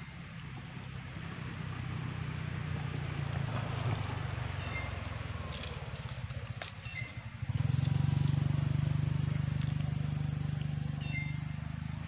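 A motor vehicle's engine running steadily, its low drone building gradually, then growing suddenly louder about seven and a half seconds in before slowly easing off.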